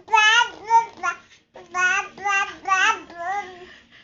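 A baby's high voice babbling 'blah, blah, blah' in a sing-song run of quick syllables, then a short pause and another run.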